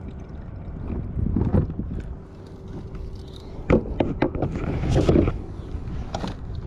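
Scrapes and sharp knocks of a small redfish being handled and laid out for measuring, a cluster of clicks coming about four to five seconds in. Low wind rumble on the microphone underneath.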